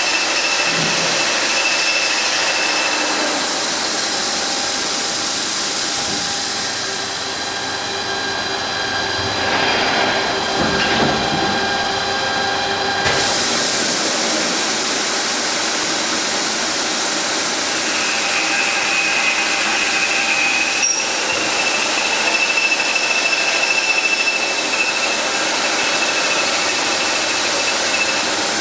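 Three-direction H-beam drilling machine running: steady loud machine noise with a high whine that fades out a few seconds in and returns later, and a sharp click about two thirds of the way through.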